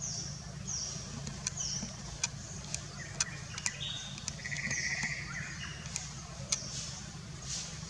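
Birds chirping: short, high, falling notes repeated about once a second, with sharp ticks and a buzzy trill about halfway through, over a steady low hum.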